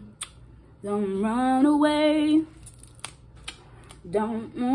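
A woman humming a tune in two long, wavering phrases, one about a second in and another near the end, with a few sharp clicks between them from boiled shellfish shells being peeled.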